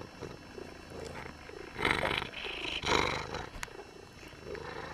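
Domestic cat purring close to the microphone in soft, even pulses. About two and three seconds in there are two louder rustling bursts as fur brushes against the microphone.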